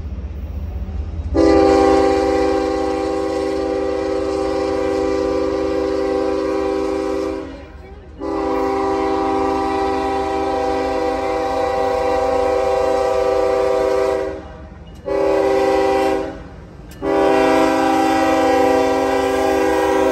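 Norfolk Southern diesel freight locomotive sounding its multi-tone air horn in four blasts, long, long, short, long: the standard grade-crossing signal. The horn sounds over the low rumble of the approaching train. The blasts begin about a second in, and the last long one is still sounding at the end.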